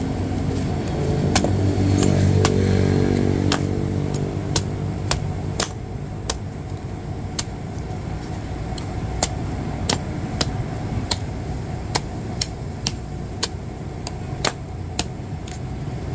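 Machete chopping a green coconut: sharp chop after chop at an uneven pace, about one or two a second, over steady road traffic. A vehicle's engine passes loudly in the first few seconds.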